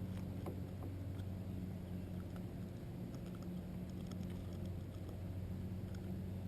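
Steady low hum of a boat motor, with scattered light clicks and ticks over it.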